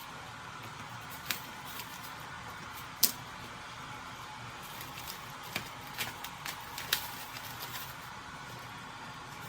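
Light kitchen-prep handling: a dozen or so short, sharp clicks and taps of utensils, some single and some in a quick cluster, over a steady faint hiss.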